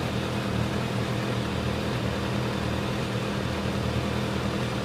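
Kawasaki ZX-6R's inline-four engine idling steadily.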